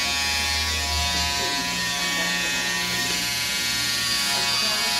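Corded electric hair clippers buzzing steadily as they are run over a closely shaved scalp.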